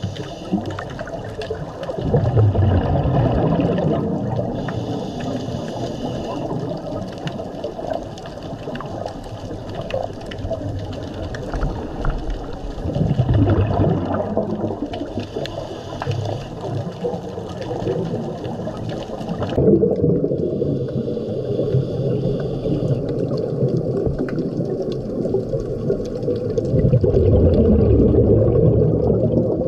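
Underwater sound of a scuba diver's regulator: bubbles rumbling out in surges every several seconds over a steady wash of water noise. The higher hiss drops away suddenly about two-thirds of the way through.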